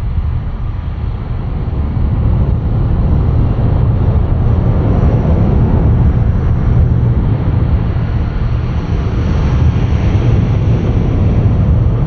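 Wind buffeting the microphone with a steady low rumble, over the wash of small ocean waves breaking on the beach.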